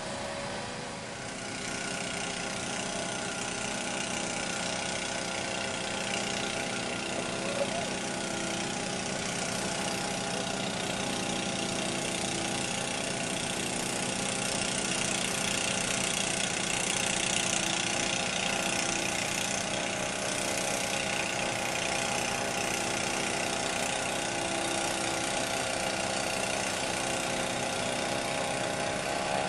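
Snowblower engine running steadily.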